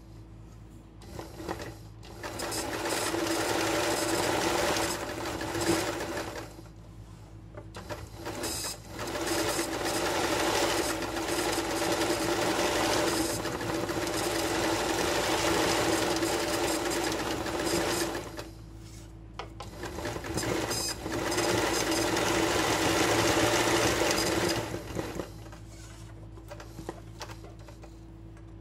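Sewing machine stitching free-hand embroidery on fabric held in a wooden hoop. It runs in three spells of several seconds, with brief stops between them, and stops a few seconds before the end.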